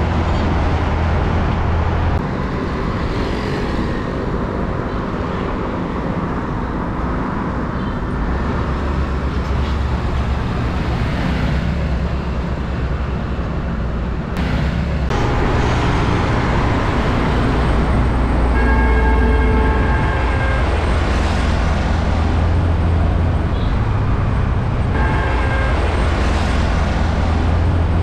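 Heavy road traffic passing close by: diesel trucks, including tank trucks, go by with engine hum and tyre noise, mixed with motorbikes and cars. The sound changes abruptly about two seconds in and again about halfway through.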